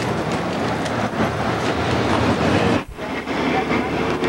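Rumbling, rattling road noise heard from inside a moving car, with many small clicks and knocks, cutting out briefly a little before three seconds in.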